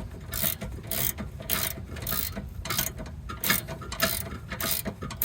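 A 17 mm ratchet clicking in short repeated strokes, about three a second, as a locking nut is run down onto a sway bar end link stud.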